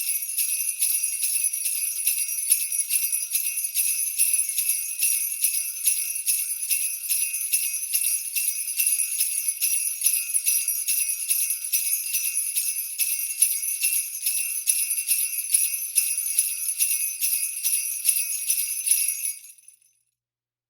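Jingle bells shaken in a fast, steady rhythm: bright metallic jingling with no low tones, which cuts off shortly before the end.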